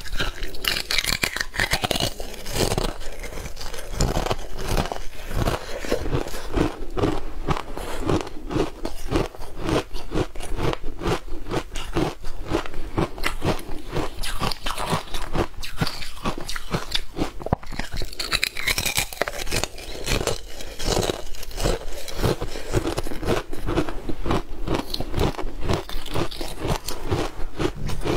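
Frozen matcha ice discs being bitten and chewed close to a lapel microphone: a continuous run of sharp, rapid cracks and crunches as the ice breaks between the teeth.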